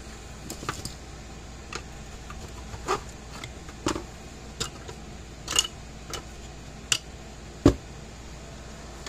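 Irregularly spaced clicks and knocks of hands handling an opened electric fence charger, moving its circuit board and capacitor in the plastic case, over a steady low hum. The loudest knock comes near the end.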